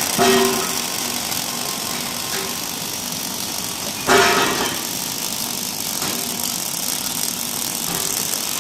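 Steady workshop noise from a robotic welding cell, with a short louder sound just at the start and again about four seconds in.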